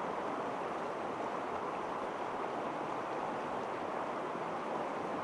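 Creek water running: a steady, even rush with no breaks.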